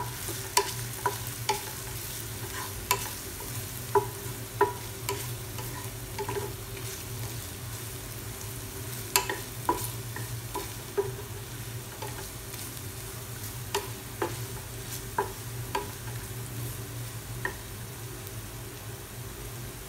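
A slotted wooden spatula stirring and scraping food frying in a non-stick pan, with irregular sharp taps of the spatula on the pan over a steady sizzle and a low hum.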